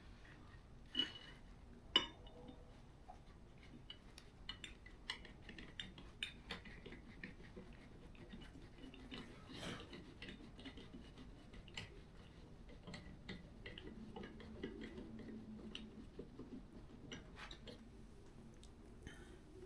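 Faint, scattered metallic clicks and clinks of hand tools and bolts being handled, with two sharper clicks about one and two seconds in.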